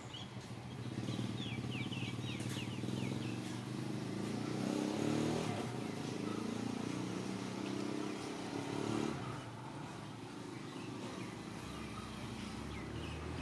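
A small engine, like a motorcycle's, passes by: it grows louder to a peak about five seconds in and fades away by about nine seconds. A quick run of short, high chirps sounds about two seconds in.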